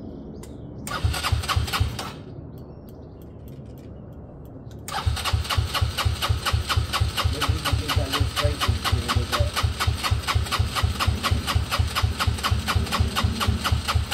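Benelli Velvet scooter engine: a short start attempt of about a second, then about five seconds in it fires up and keeps running with a steady, even beat. It is running with no air filter fitted, which is what they blame for it struggling.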